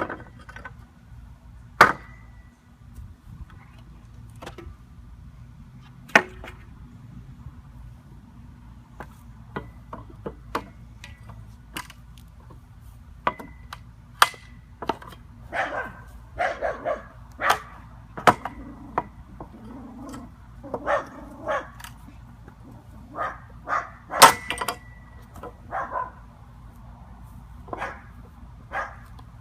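Pallet being broken down with an Eizzy Bar Pro wrecking bar: scattered sharp knocks and cracks of steel against wood, some followed by a brief metallic ring, coming thicker and faster about halfway through.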